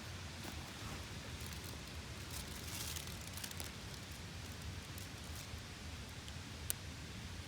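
A small wood campfire, newly lit with fire starter, crackling: scattered sharp pops and ticks over a steady hiss, with one louder pop near the end.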